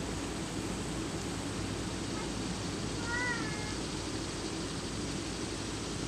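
A single short mewing animal call about three seconds in, rising then falling slightly in pitch, over a steady low background hum.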